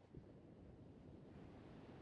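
Near silence: a faint low hiss of room tone, with a soft click just after the start and the hiss a little louder after it.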